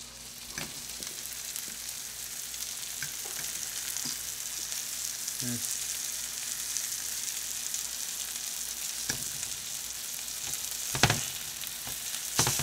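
Flour-dredged vermilion snapper fillets sizzling steadily in a hot frying pan, the sizzle building over the first couple of seconds. A few sharp clinks of a fork against the pan come as the pieces are turned, the loudest near the end.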